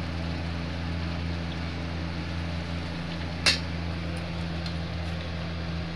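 Steady low hum of an induction cooktop's cooling fan, with a single sharp clack of the steel ladle against the steel kadhai about three and a half seconds in.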